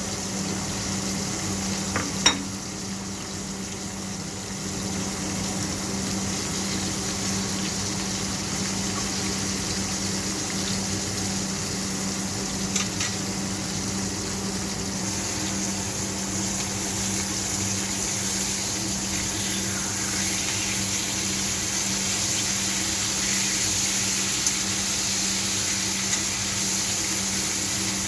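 Beef steak frying in oil in a pan over high heat, a steady sizzle, with a sharp metal clink about two seconds in and another around thirteen seconds.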